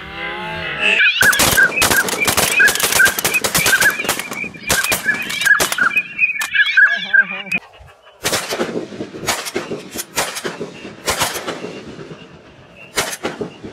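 Rapid volley of shotgun fire from several guns at flying ducks: dozens of overlapping shots for about six seconds, then a pause, then scattered shots. Over the first half a honking call repeats about twice a second.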